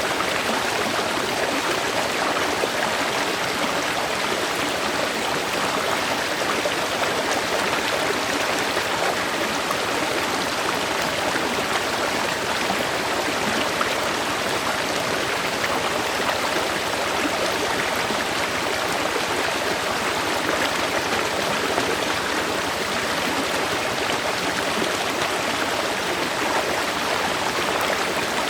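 Flowing stream or small river, a steady rush of water running over rocks.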